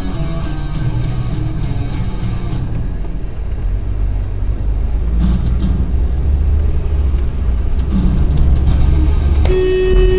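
Vehicle rumble from a road clip mixed with background music. About half a second before the end a sudden loud sound starts, carrying a held tone.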